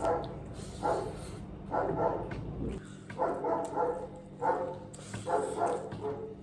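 A dog barking repeatedly, about one bark a second, over a steady low hum.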